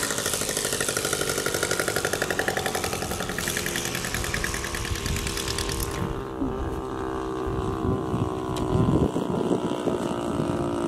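The engine of a radio-controlled scale Piper Cub model running as it passes low and lands. About six seconds in its sound turns suddenly duller and lower as it rolls out and taxis on the grass at low throttle.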